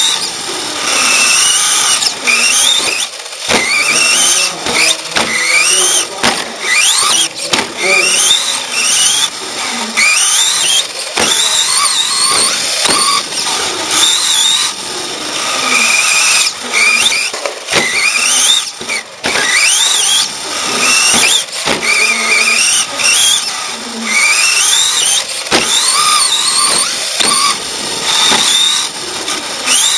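Electric radio-controlled race truck's motor and drivetrain whining, heard onboard: the pitch sweeps up sharply with each burst of throttle and drops away again, over and over. Frequent clicks and knocks from the chassis come through as it bumps and lands.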